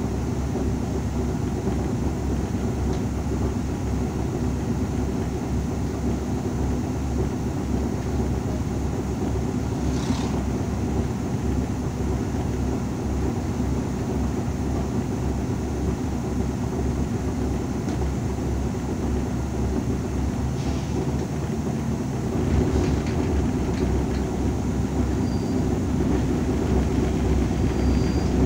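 Irisbus Citelis 12 m city bus engine running steadily at idle, heard from inside the cabin, getting louder about 22 seconds in as the bus pulls away.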